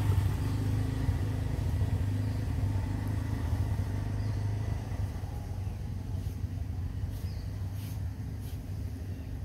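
A steady low engine hum that weakens about halfway through, with a few faint clicks near the end.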